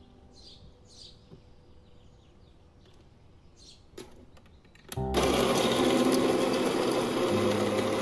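A light click about four seconds in, then a Baratza Encore burr coffee grinder's motor starts about a second later and runs steadily and loudly.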